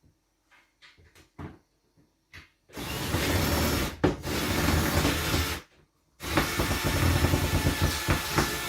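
Power drill running in reverse to back a screw out of the ceiling, in two runs of about three seconds each with a short pause between, after a few light clicks and knocks.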